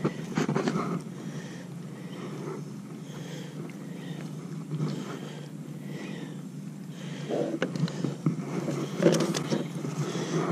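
Hands handling a freshly caught flounder and the soft-plastic lure, unhooking it: soft rustles and a few small clicks, busier from about seven seconds in, over a steady low background noise.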